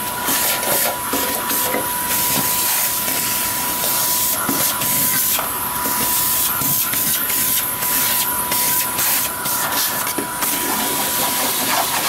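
Electrolux vacuum cleaner running with a steady high whine and a rushing hiss through its suction hose, the hiss fluttering unevenly as the nozzle is worked over dirt and mouse droppings.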